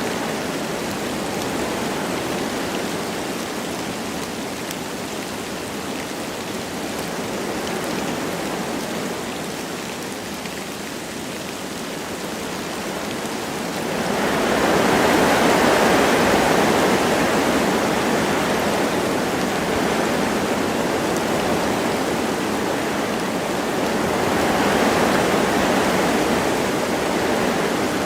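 Wind blowing through forest trees with light rain, a steady rushing noise that swells into a louder gust about halfway through and again near the end.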